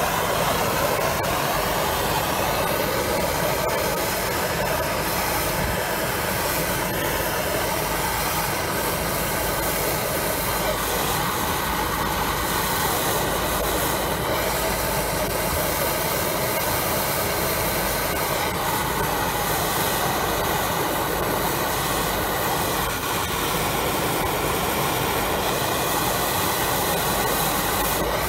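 MAPP gas blowtorch burning with a steady, unbroken hiss while it heats a bent towing-eye bracket so it can be bent straight.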